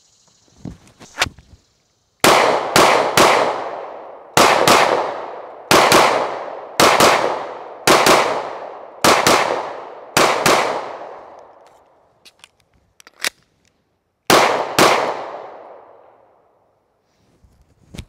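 Sig Sauer P320 XCompact 9mm pistol firing about eight strings of shots, mostly quick pairs, each shot with a long fading echo. A few light clicks come shortly before the first shot, and the last pair follows a pause of about four seconds near the end.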